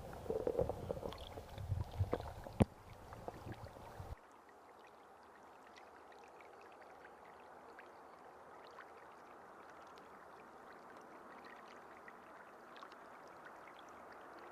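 Irregular splashing and knocking with a low rumble for about four seconds, with a sharp knock near the middle. Then an abrupt cut to a faint, steady trickle of flowing water with scattered small ticks.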